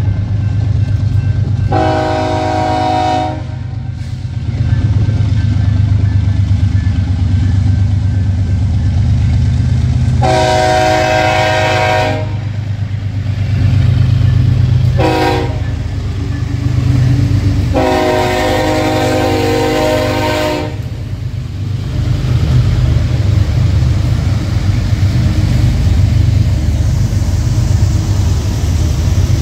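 Diesel freight locomotives passing with a steady heavy rumble, the lead unit blowing its horn, a chord of several tones, in four blasts: long, long, short, long, the standard signal for a grade crossing.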